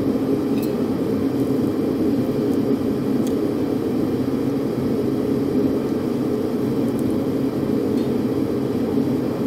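Steady whir of a fan or air-handling unit, even and unchanging, with a couple of faint light ticks.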